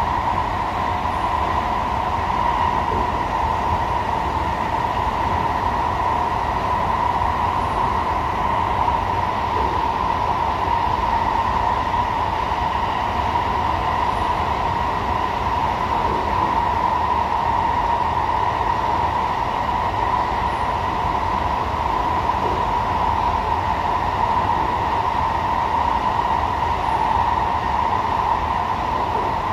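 Cabin running noise of an SMRT C151A metro train travelling at a steady speed: a constant rush of wheels on rail with a steady mid-pitched tone over it. The pitch and loudness stay even, with no speeding up or braking.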